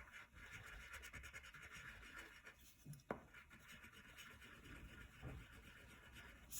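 White crayon scribbling on paper, faint quick rubbing strokes as small circles are filled in solidly, with one light tap about three seconds in.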